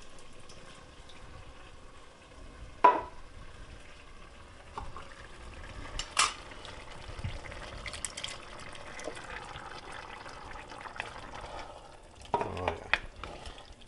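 Two cans of diced tomatoes being emptied into an enameled cast-iron pot of browned ground beef, then stirred in with a wooden spoon: a sharp knock against the pot about three seconds in and a smaller one about six seconds in, over faint steady stirring.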